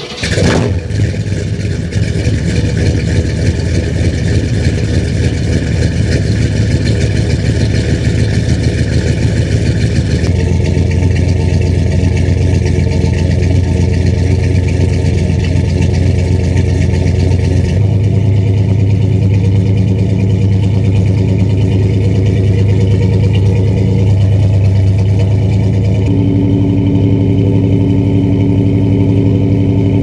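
Chevy 454 big-block V8 catching on a cold start, then idling steadily through headers and a true 3-inch dual exhaust with Flowmaster-style mufflers and no H-pipe. The idle note changes abruptly a few times as it warms up.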